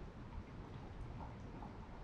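Faint wet stirring as a silicone spatula works soaked oats around a glass measuring cup, over a low steady room rumble.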